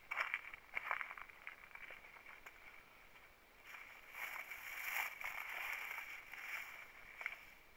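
Footsteps crunching and scuffing on rocky, gravelly ground, with several sharp steps in the first second or so. Through the middle there is a longer rustling hiss of scrub or wind brushing past.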